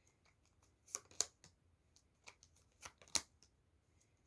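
Tarot cards being handled and drawn: a few short, sharp card snaps and slaps, the loudest about three seconds in.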